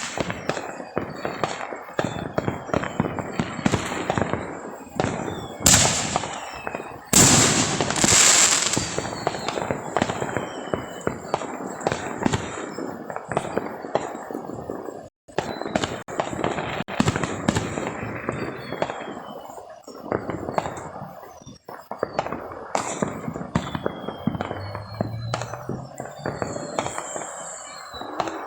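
Neighbourhood fireworks and firecrackers going off in rapid, overlapping cracks and pops, with a few louder bangs about six to nine seconds in.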